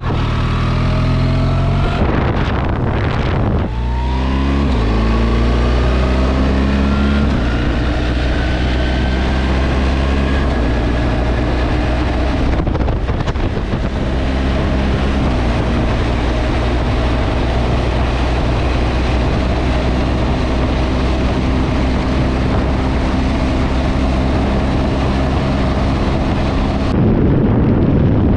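Motorcycle engine pulling up through the revs with a gear change about four seconds in, then running steadily at cruising speed, with wind rushing over the microphone.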